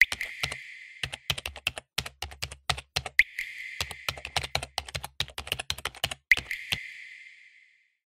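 Computer-keyboard typing sound effect: quick irregular key clicks in runs, stopping about seven seconds in, over a faint high ringing that fades out just after.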